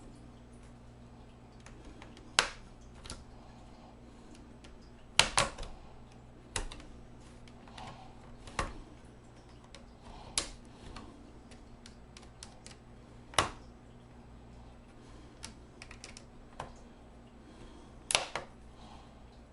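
Sharp plastic clicks and snaps, scattered a second or several apart, as the snap-fit clips of a Dell Inspiron 17 5767 laptop's plastic case are pried loose along its edge.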